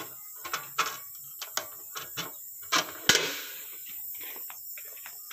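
A run of clicks and knocks from handling a metal electrical enclosure box and its hinged cover, the loudest a sharp knock with a short ring about three seconds in, followed by fainter taps.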